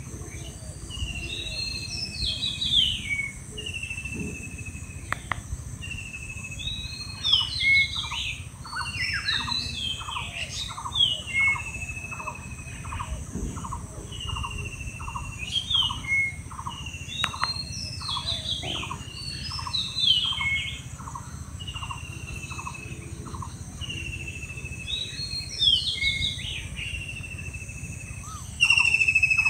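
Several birds singing. One repeats a short downward whistle every second or two, and another gives a run of quick short notes, about two a second, through the middle, all over a steady low background noise.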